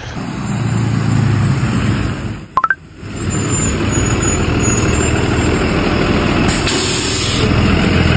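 School bus engine running as the bus pulls up and stops, with a hiss of its air brakes lasting about a second, some six and a half seconds in.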